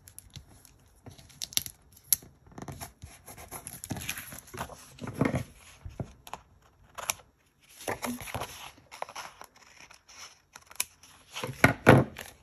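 Paper handling: wax paper crinkling and paper pieces rustling as stickers are peeled off, with scissors snipping paper, and a louder rustle of paper near the end.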